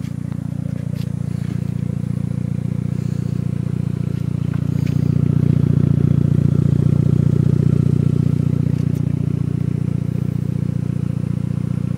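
Exhaust note of a 2005 Mitsubishi Lancer Evolution's turbocharged 2.0-litre four-cylinder idling through a Tanabe Medalion aftermarket exhaust with an aftermarket downpipe: a steady, pulsing low rumble that grows somewhat louder around the middle.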